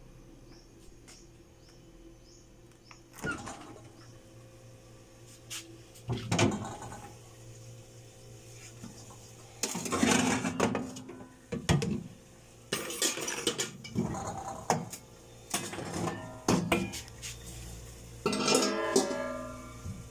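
Metal cooking pots clattering and clanking as they are handled and moved, in a run of irregular knocks and bangs, several with a short metallic ring.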